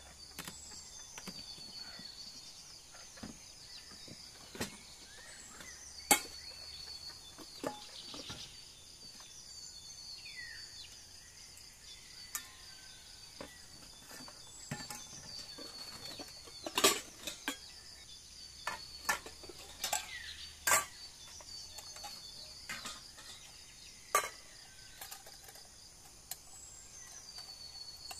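Countryside ambience: a steady high shrill of insects, with a call repeating about every five seconds. Scattered sharp clicks and knocks cut through it, the loudest about six, seventeen and twenty-one seconds in.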